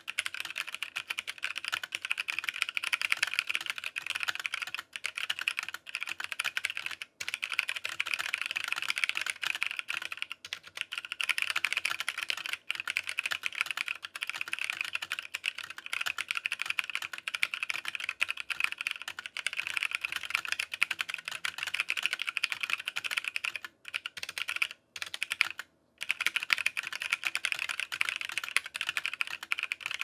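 Fast, continuous typing on a CFTKB Discipline 65% mechanical keyboard with tactile "Shaving Cream" switches (orange Razer tactile stems in cream housings) and ePBT keycaps: a dense stream of key clacks, broken by a few short pauses, two of them close together near the end.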